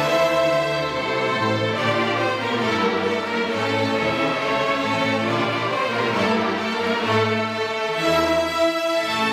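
Student string orchestra of violins, violas and cellos playing together: held, sustained notes over a low line that changes pitch every second or so.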